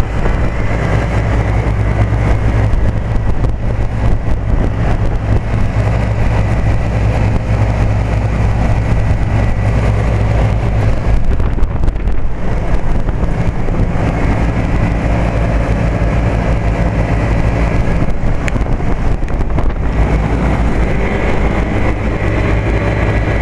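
1998 Trane Odyssey commercial split-system air-conditioner condensing unit running steadily: a low compressor hum under the noise of the condenser fan. It runs on without cycling off.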